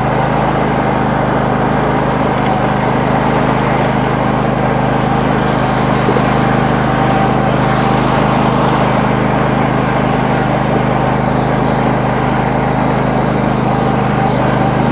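Noma lawn tractor engine running at a steady speed, its pitch and level unchanging.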